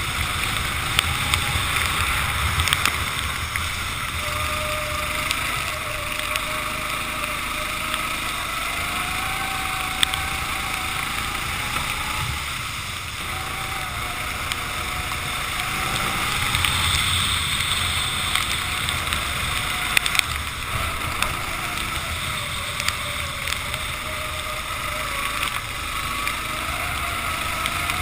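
Racing kart engine revving up and falling back again and again as the kart accelerates and brakes through corners, over a steady rush of wind and wet-track noise on the onboard microphone, with a few sharp knocks.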